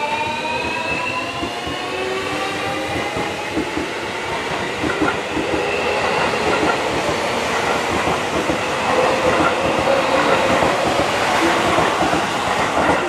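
Seibu 40000-series electric train (set 40152F) pulling out and accelerating. Its traction motors give a whine of several tones rising in pitch, joined by wheel clatter over the rail joints that builds as it picks up speed.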